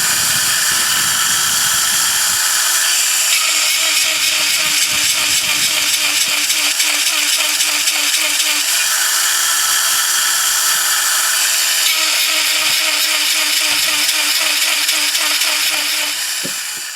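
Granberg G1012XT electric chainsaw-chain grinder running steadily while its grinding wheel sharpens cutter teeth. The harsh grinding grows louder in two long spells, about a quarter of the way in and again from about two-thirds in.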